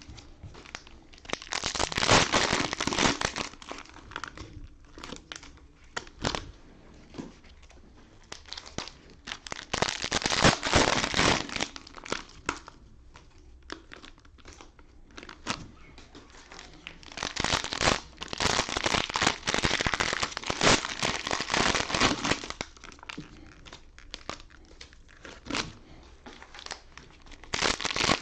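Cellophane wrappers of trading-card packs being torn open and crinkled by hand, in several bouts of a few seconds each with short quieter pauses between.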